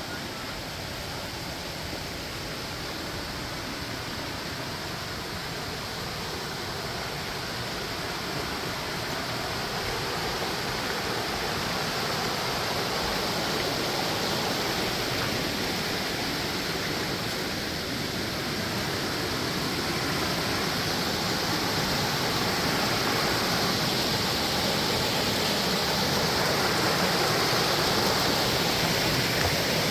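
Waterfall: the steady rush of falling water, growing gradually louder.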